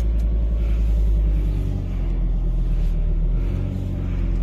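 Fiat Coupe 20V Turbo's turbocharged inline five-cylinder engine running steadily at idle, a constant low rumble.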